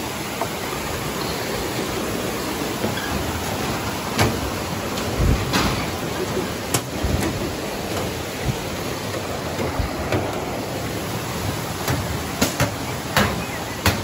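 Steady rush of a rocky mountain stream, with irregular knocks of footsteps on a metal-plated footbridge over it.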